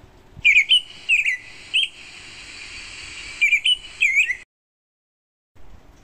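American robin singing: a string of short, clear chirped whistles, some rising and some falling, over a steady background hiss. The song stops abruptly about four and a half seconds in.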